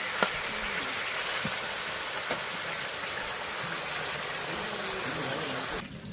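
Broiler chicken pieces frying in oil in a large wok-shaped pan: a steady sizzle, with a few clinks of a metal spatula against the pan. The sizzle cuts off suddenly near the end.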